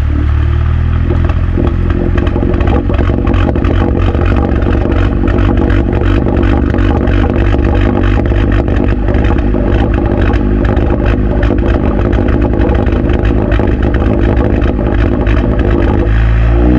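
Four-cylinder engine of an Audi A4 B9 running through an Armytrix valvetronic catback exhaust, a steady loud note with a dense crackle throughout. The pitch shifts near the end.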